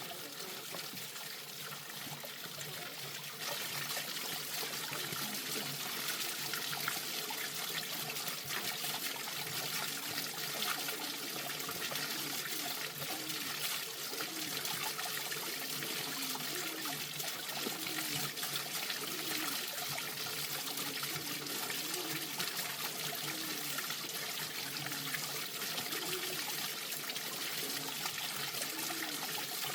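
Water running and trickling steadily, growing louder about three and a half seconds in and holding there.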